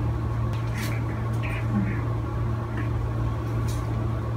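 A steady low hum, with a few faint light clicks and rustles of toys being handled.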